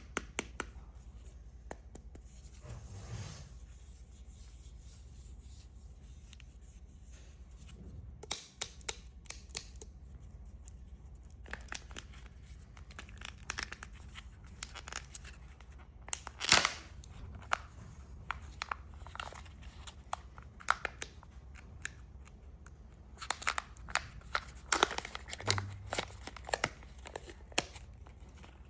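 Candy wrappers being handled and torn open close to the microphone: irregular crinkles and sharp crackles in clusters, the loudest a single snap about two-thirds of the way through, over a faint steady low hum.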